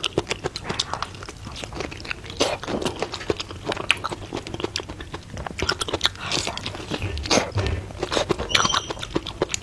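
Close-miked mukbang eating: a person biting and chewing food, with many irregular wet clicks and crunches from the mouth.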